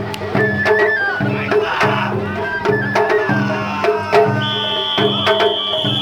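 Japanese festival music (matsuri-bayashi): a stepping flute melody over regular drum beats, with a high note held from a little after four seconds in.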